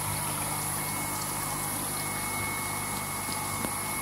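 Steady bubbling and running water in a recirculating fish tank, with a low, even hum from its circulation pump and aeration.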